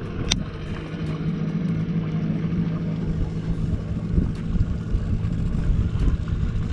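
Small boat's motor running steadily with a low hum and rumble. There is one sharp click about a third of a second in.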